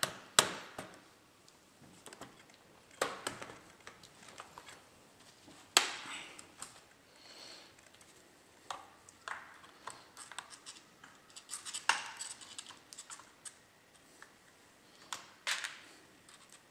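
Plastic parts of an HP Pavilion laptop's case being handled and pressed into place: irregular sharp clicks, snaps and taps, with a few louder snaps spread through and softer handling noise between.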